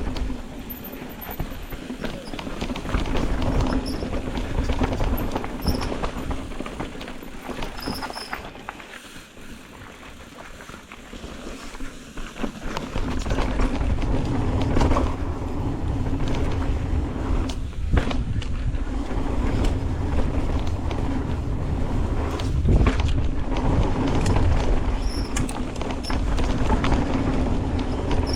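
Mountain bike riding down a rough dirt trail: tyres rolling over the ground with rattles and knocks from the bike, and a steady hum underneath. It eases off for a few seconds in the middle, then grows louder again.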